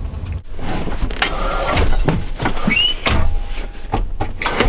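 Clicks, knocks and cloth rustling of a van cab seat being unlocked at its swivel base and turned, with a short rising squeak nearly three seconds in.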